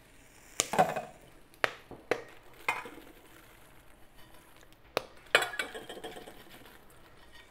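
A few sharp metal clinks and knocks of a pot and its lid being handled, and popped popcorn poured out of the pot into stainless steel bowls, with a longer rustle of pouring about five seconds in.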